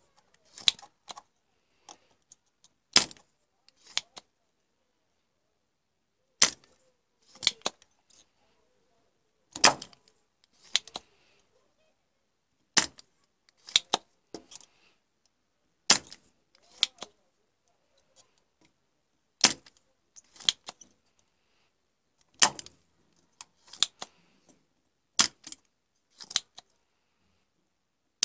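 Spring-loaded desoldering pump (solder sucker) snapping over and over as it is worked on solder joints. A sharp snap comes about every three seconds, eight in all, and each is followed about a second later by a softer click.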